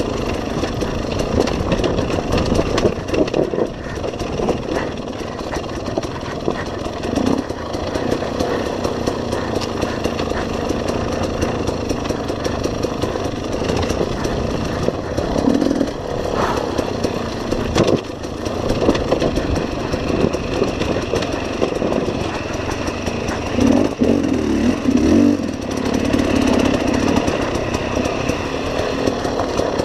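KTM enduro dirt bike engine running on a rocky trail, the revs rising and falling with the throttle, with louder surges about halfway and again near the end.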